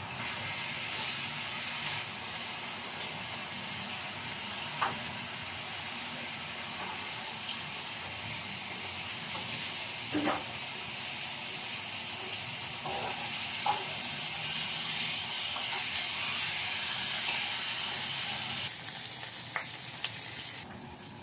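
Pieces of meat sizzling as they fry in a pan on a portable gas stove, a steady hiss with a few sharp clicks scattered through it. The sizzle cuts off shortly before the end.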